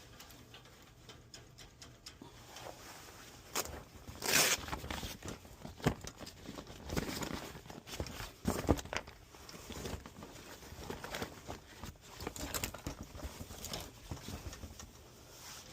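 Hand work on a furnace blower motor assembly: scattered metallic clicks, knocks and short scraping rattles of tools and parts. The loudest rattle comes about four seconds in.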